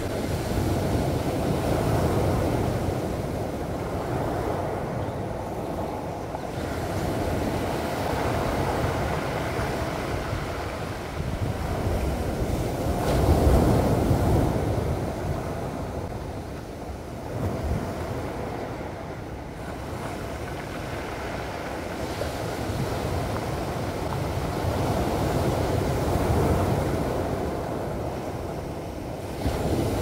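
Sea waves breaking and washing up a pebble beach at high tide: a continuous surf that swells and ebbs with each wave, loudest about halfway through.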